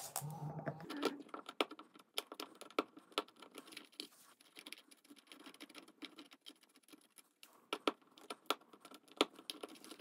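Irregular small clicks and scrapes of an old plastic duplex wall outlet being handled and worked loose from its electrical box.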